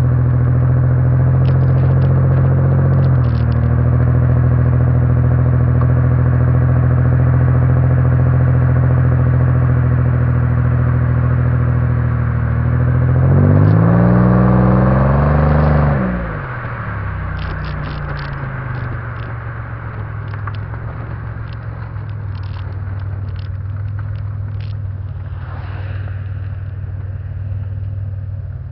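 Pontiac engine running through a stainless-steel exhaust at a steady idle, with one rev about halfway through that rises and falls over a couple of seconds. Afterwards it settles to a lower, quieter idle.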